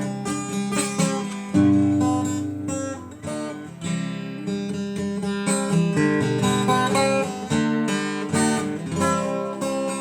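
Acoustic guitar music: strummed and plucked chords played in a steady rhythm, without vocals.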